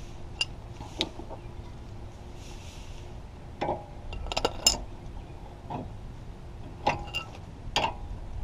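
Steel combination wrenches clinking as they are picked up off the concrete and fitted onto the outer tie rod end's nuts: a scattering of short, sharp metal clinks at irregular intervals, bunched together about halfway through.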